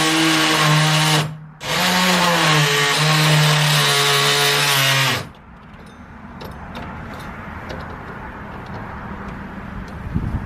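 Black & Decker Matrix power tool with a metal-cutting saw blade running against a doorknob: the motor whines, stops briefly a little over a second in, starts again and runs until about five seconds in, then cuts off, leaving quieter handling noise and a few clicks.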